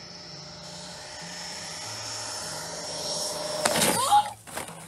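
Radio-controlled model jet whining steadily on a low pass, growing louder, then crashing a little under four seconds in: the whine cuts off in a sudden loud crash of impact, followed by a second knock about half a second later.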